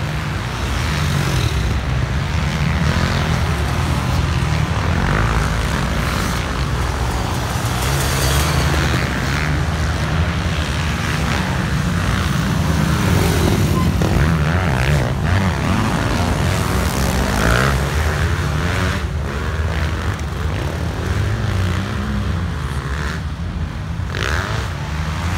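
Several motocross dirt bikes riding the dirt track, their engine notes rising and falling as the riders work the throttle.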